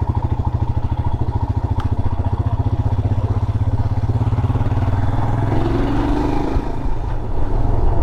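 Motorcycle engine running steadily while riding, a fast even pulsing beat. The engine note shifts about six to seven seconds in.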